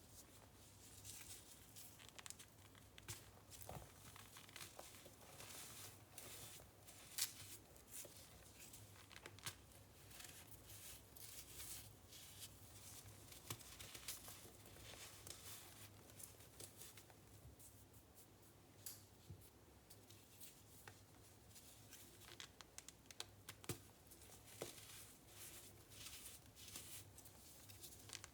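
Baking soda and cornstarch powder being squeezed and pressed, giving soft, irregular crunchy squeaks and crackles with a few sharper crunches.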